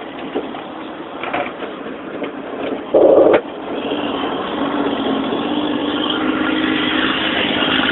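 Mack dump truck's diesel engine running, its sound building steadily from about halfway through. A short loud tone cuts in about three seconds in.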